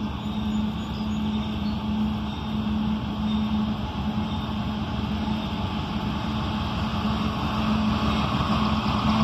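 Diesel locomotive of an approaching CSX freight train: a steady low engine drone over a rumble, growing slowly louder as the train nears.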